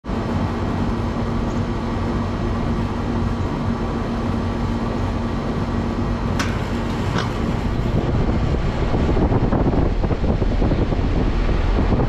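Lennox Elite EL16XC1 outdoor air-conditioner condensing unit starting up: a steady hum with a held tone, and two sharp clicks around six and a half and seven seconds in. After that the condenser fan spins up and the rush of air grows louder.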